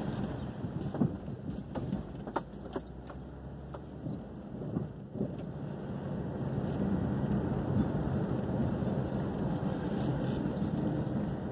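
Car driving slowly, heard from inside the cabin: a steady low engine and road rumble, with a few sharp clicks and rattles in the first few seconds.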